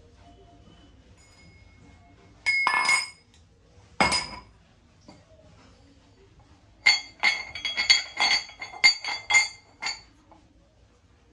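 Brass kitchen utensils knocking together and ringing: two clinks a few seconds in, then a quick run of about ten clinks near the end.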